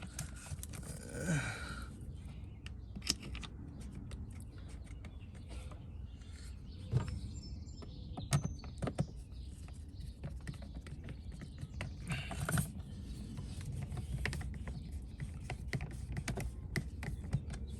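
Irregular small plastic clicks, taps and scrapes as an electrical outlet cover plate is handled and pushed into position over a GFCI outlet, with a few louder knocks.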